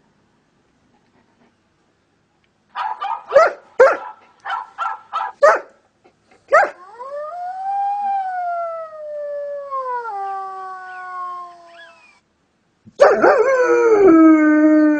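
Dog giving a quick run of short yips and barks, then a long howl that rises and slowly falls, and a second howl near the end.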